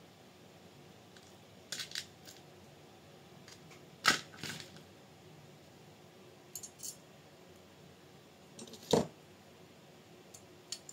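Metal bolts and mounting parts clinking and knocking as they are handled and fitted during chassis assembly: a handful of separate sharp clinks, the loudest about four seconds in, and a heavier, duller knock about nine seconds in.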